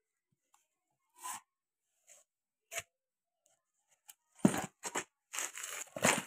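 Small cardboard parts box handled and set down on a clutch pressure plate: a few brief scrapes and rustles, then a busier run of scraping in the last couple of seconds.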